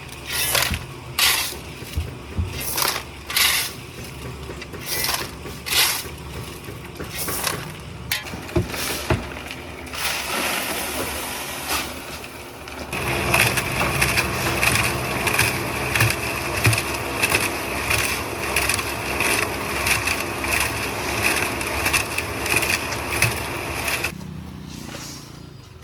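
Hand work with wet concrete and gravel: repeated scraping and scooping strokes, a stroke every half second to second. About halfway through this gives way to a dense, fast gritty rattle over a steady low engine hum, which stops near the end.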